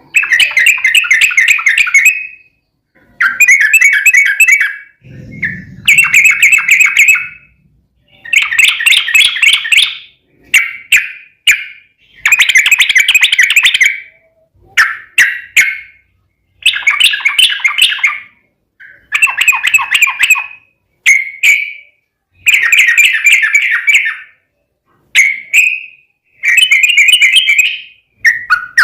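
Yellow-vented bulbul (trucukan) singing loud, rapid bubbling song phrases, each one to two and a half seconds long with short pauses between, over and over. A dull thump sounds about five seconds in.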